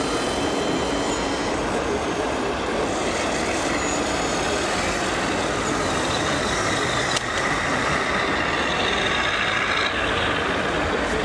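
Steady truck-engine sound from a scale RC tipper truck's sound module as the model drives, over the dense background noise of a busy exhibition hall, with a short click about seven seconds in.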